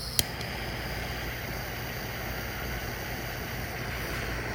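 Handheld gas torch lit with a single sharp click near the start, then burning with a steady hiss.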